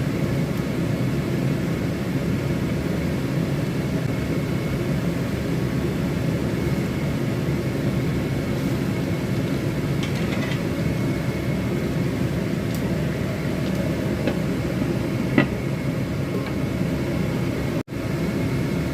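Steady whirring hum of a running fan or motor, with a few light taps about ten seconds in and a sharper click about fifteen seconds in.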